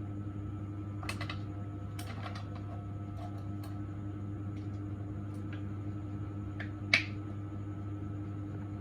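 Scattered sharp clicks and taps of small hard objects, about nine in all, the loudest a little before the end, over a steady low electrical hum.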